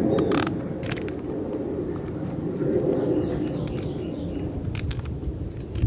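A dove cooing in soft low hoots, with scattered sharp clicks and scrapes of a utility knife cutting open a used oil filter.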